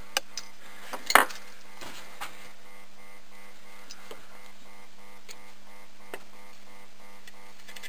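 A few sharp clicks and taps of soldering tools being handled at a circuit board, the loudest about a second in, over a steady electrical hum with a faint pulsing pattern.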